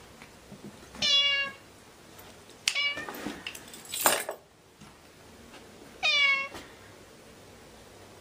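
Ginger tabby cat meowing three times: a meow about a second in, a shorter falling one a little later, and a longer one past the middle. There is a brief noisy burst about four seconds in.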